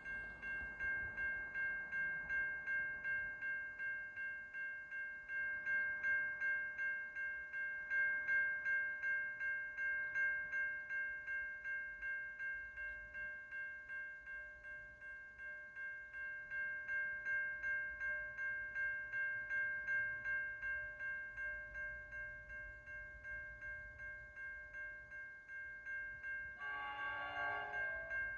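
Level crossing warning bell ringing steadily, about two strikes a second. Near the end a freight locomotive's horn sounds once for about a second as the NR class locomotives approach in the distance.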